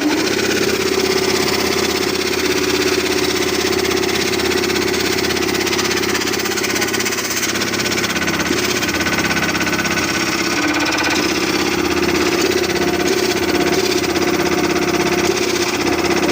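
20 HP air compressor running steadily, a loud continuous mechanical hum.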